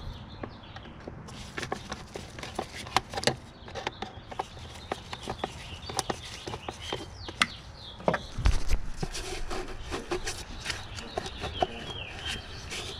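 Scattered clicks, clinks and knocks of hand tools and metal parts being worked loose in a car's engine bay, with a heavier clunk about eight and a half seconds in.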